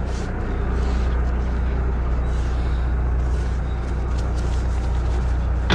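Small fishing boat's engine running steadily, a constant low hum under a rush of wind and water noise.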